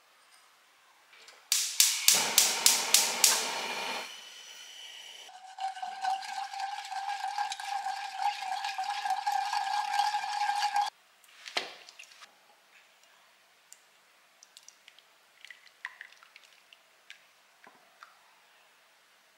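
Kitchen utensil clinking sharply against a dish about seven times in quick succession, then liquid pouring steadily for about five seconds with a slowly rising ringing tone, cut off suddenly, followed by a few small handling clicks.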